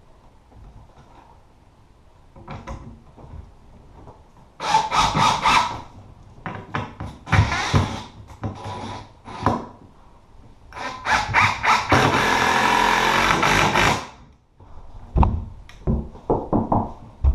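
A power tool working wood, running in several short bursts and then one steady run of about three seconds, with scattered knocks between.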